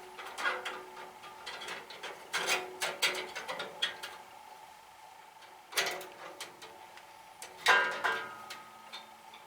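Steel band saw blade clinking and rattling against the saw's metal guide blocks and frame as it is worked into place, with scattered knocks, a few followed by a short metallic ring.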